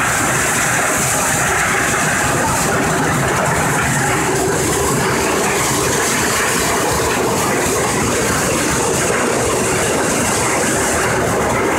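Steady running din of a garlic processing line: conveyor belts and a garlic color sorting machine running continuously, with a constant high hiss over a dense mechanical rumble.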